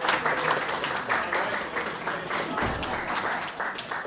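A crowd of guests applauding: many hands clapping fast and unevenly, starting to die down near the end.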